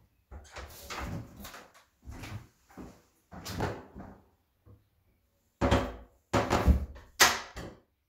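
A door being opened and shut: a run of thumps and knocks, the three loudest close together near the end.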